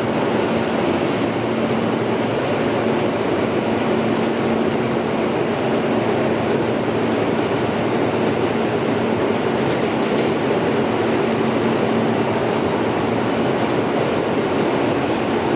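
Inside an R160A subway car running through a tunnel: a steady rumble of wheels on rail, with a steady low hum under it.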